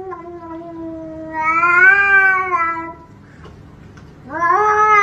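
Domestic cat yowling. One long, drawn-out meow lasts about three seconds and swells louder in the middle, then comes a short pause, then another loud yowl starts near the end.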